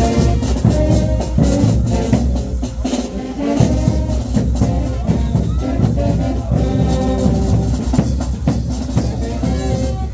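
Brass band playing caporal dance music with a steady drum beat.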